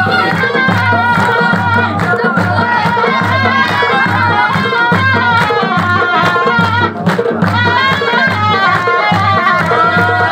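Chitrali folk dance music: dhol drums beating a steady, driving rhythm, with a deep stroke repeating a little more than once a second and quicker strokes between, under a wavering melody line.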